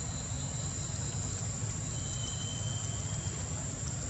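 Outdoor ambience of insects droning: a steady high-pitched whine over an even hiss and a low rumble, with a short higher tone about two seconds in.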